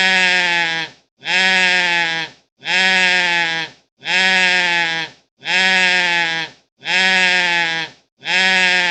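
Goat screaming: seven loud calls, each about a second long, falling slightly in pitch and repeated about every 1.4 s.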